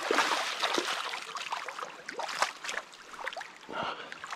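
Hooked salmon thrashing and splashing in shallow water over river stones, with the river running. The splashing is heaviest in the first couple of seconds, then dies down to scattered splashes.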